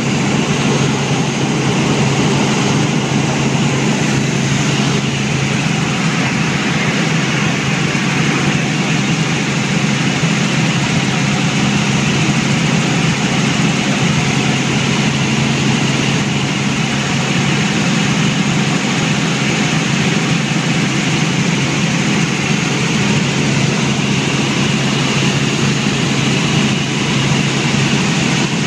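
Helicopter in flight: a loud, steady drone of engine and rotors with a low hum.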